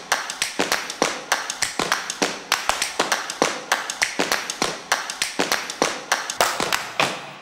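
Hand clapping from a few people: sharp separate claps, about four or five a second, fading out near the end.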